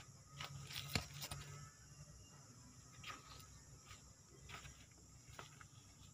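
Handling of a porous rock on wet ground: a few faint sharp clicks and knocks, the sharpest about a second in, over a faint low hum.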